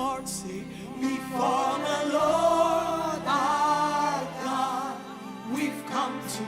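Gospel worship music: singing in long held notes that waver, over a steady accompaniment.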